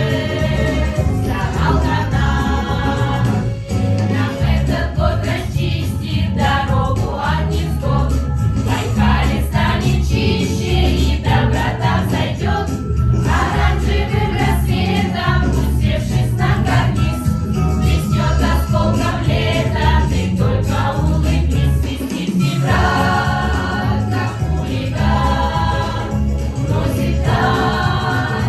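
A vocal ensemble singing a song in chorus over instrumental backing with a steady bass.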